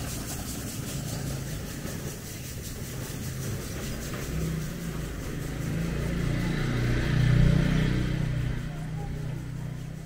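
A motor vehicle's engine running close by, growing louder to a peak about seven seconds in and then fading as it passes.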